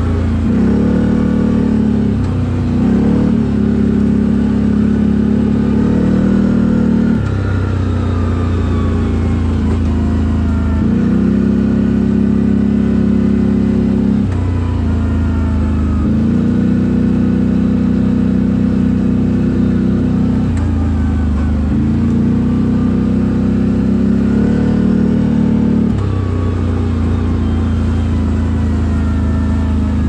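CFMoto CForce 1000 ATV's V-twin engine through an Akrapovic exhaust, ridden hard: the engine note holds for a few seconds at a time, then jumps up or drops back as the throttle is opened and eased, over and over.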